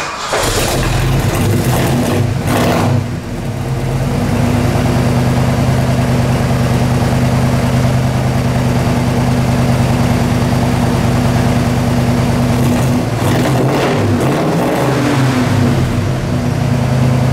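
1967 Ford Mustang Fastback's engine running through its dual exhaust: a steady idle, picked up by brief throttle blips about two to three seconds in and again around thirteen to fifteen seconds.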